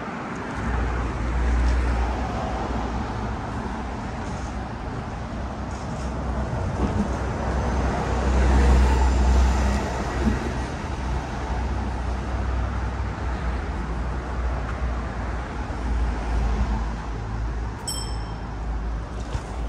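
Road traffic on a city street, with a city bus passing and the sound at its loudest about halfway through. A short high chirp sounds near the end.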